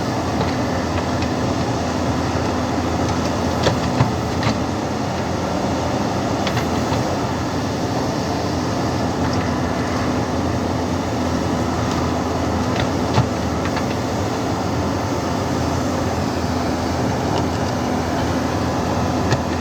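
JCB backhoe loader's diesel engine running steadily under working load, with a constant hum and a few short sharp knocks, two about four seconds in and one about thirteen seconds in.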